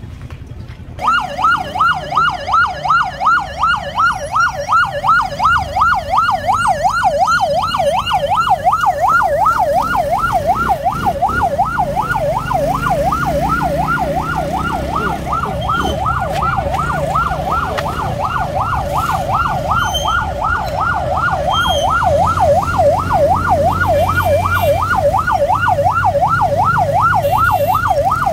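Electronic yelp siren on a motorcycle ambulance, switched on about a second in and warbling rapidly up and down, about three sweeps a second, with the motorcycle's engine running underneath.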